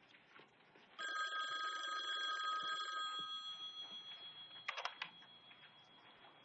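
A bell-like ring of several steady pitches starts suddenly about a second in, holds for about two seconds, then fades slowly. A short knock sounds near five seconds in.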